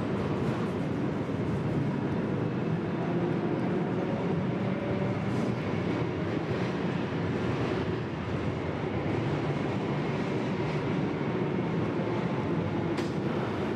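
Vintage tram running along the track, a steady noise of the car in motion, with one sharp click near the end.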